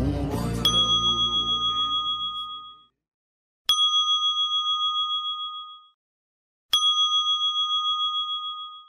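A small high-pitched bell struck three times, evenly about three seconds apart, each strike ringing out with a wavering tone for about two seconds.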